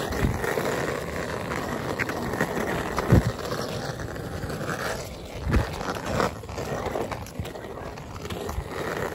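Skateboard wheels rolling on an asphalt street, a steady rumbling noise, with a loud knock about three seconds in and another a couple of seconds later.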